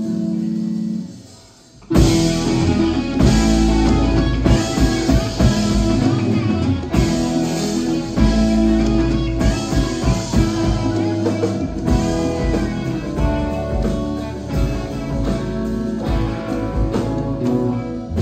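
Live rock band playing with electric guitars, bass, keyboard and drums. A held chord dies away in the first second and a half, then the full band comes back in loudly with the drums about two seconds in and plays on.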